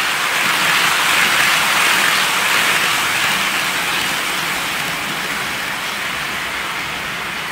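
Bachmann OO gauge Class 47 model diesel locomotive and its tank wagons running past on the track, giving a steady rushing noise from the motor and wheels. It is loudest a second or two in as the locomotive goes by, then slowly fades as the wagons follow.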